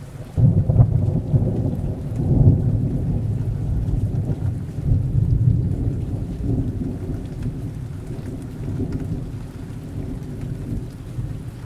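Rain falling, with a low rolling rumble of thunder that swells up about half a second in and again a couple of seconds later.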